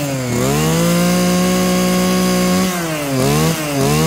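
Kawasaki TH26 brush cutter's 26cc two-stroke engine being revved. It climbs about half a second in, holds at high revs for about two seconds, drops back, then is blipped up a couple more times. It is fitted with the LT 'warm' muffler, which the shop owner says gives it a smooth, four-stroke-like note that is not harsh.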